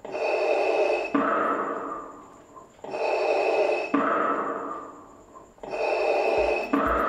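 Darth Vader breathing sound effect played by the voice-controlled helmet's MP3 module through speakers: three slow, mechanical respirator breaths, each an inhale followed by an exhale.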